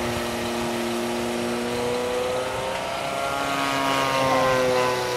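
DLE 50cc single-cylinder two-stroke gas engine and 22x8 propeller of a 27% Extra 330S RC plane in flight, running steadily. Its pitch sags slightly, then rises and gets louder about four seconds in as the plane passes or the throttle comes up.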